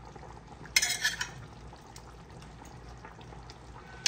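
A spoon stirring a pot of fish curry, with a brief sharp clatter against the pot about a second in, over a steady low hiss.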